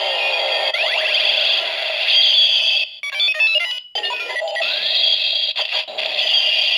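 Kamen Rider Decade DX Decadriver toy belt playing electronic sound effects and music through its small built-in speaker, triggered by a swiped rider card. The sound is tinny, with a quick run of stepping beeps about halfway through and a few brief cut-outs.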